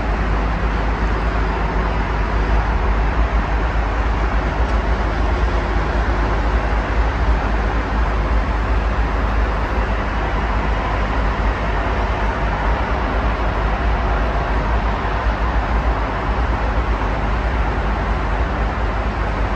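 Steady wash of city road traffic noise, continuous with no single vehicle standing out and a strong low rumble underneath.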